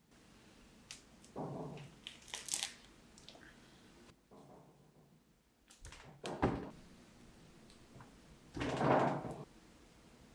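Soft reclaimed clay being handled by hand: slabs pulled off a plaster batt, torn apart and set down, with dull thuds and rustling, a sharper knock about six seconds in, and a longer, louder rushing noise near the end.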